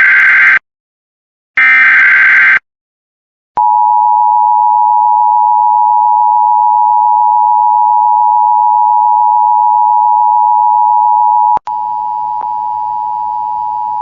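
Emergency Alert System SAME header: the end of one and then one more short burst of warbling digital data tones. This is followed by the long steady attention tone that announces a warning. About eight seconds into the tone it drops abruptly in level and continues quieter over a background hiss.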